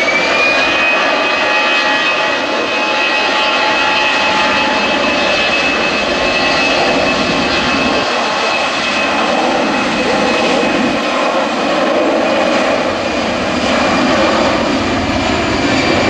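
Airbus A319-112's CFM56-5B turbofan engines spooling up to takeoff thrust on the takeoff roll: a fan whine rises in pitch over the first second, then holds steady and high above the loud, rushing jet noise.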